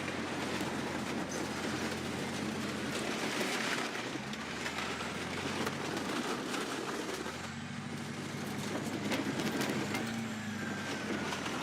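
Bulldozer's diesel engine running under load, its note shifting about seven seconds in, with a few sharp cracks and knocks near the end.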